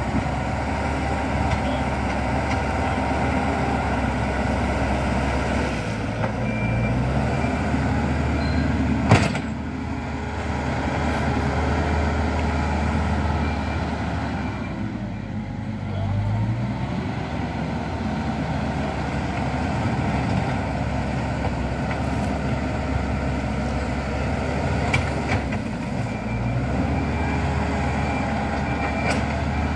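Diesel engine of heavy road-construction machinery running under load, its pitch and load changing several times as it works. A single sharp knock about nine seconds in.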